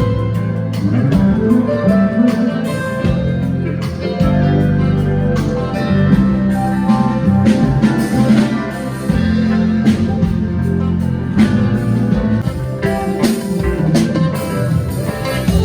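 Live band music at a sound check: guitar over a steady low bass line and drum strokes, played loud.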